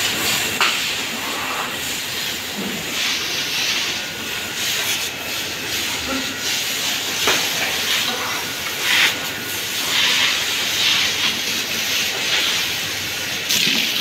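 Water spraying hard from a hose onto cattle: a steady hiss that swells and eases several times as the spray moves over the animals.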